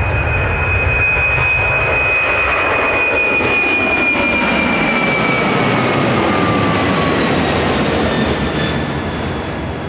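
Airbus A300-600ST Beluga's twin General Electric CF6 turbofans at takeoff thrust as it lifts off and climbs past: a loud jet roar with a high fan whine that slowly falls in pitch. The low rumble thins after a few seconds, and the whole sound fades near the end.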